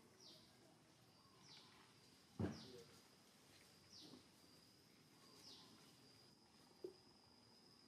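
Faint outdoor ambience: a bird repeats a short, falling high chirp about once every second, and a thin steady insect buzz comes in about halfway through. A single sharp knock about two and a half seconds in is the loudest sound.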